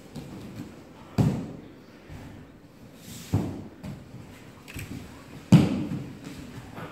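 Aikido practitioners' bodies hitting the tatami mats in breakfalls (ukemi): three heavy thuds about two seconds apart, with smaller taps and knocks between them.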